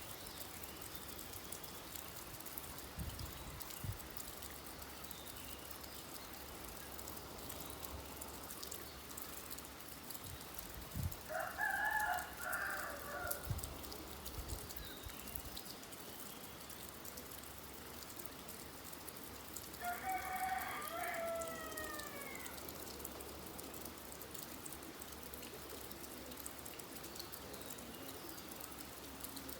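Steady rain falling, with a bird giving two loud calls of two to three seconds each, one near the middle and one about two-thirds through, the second falling in pitch at its end.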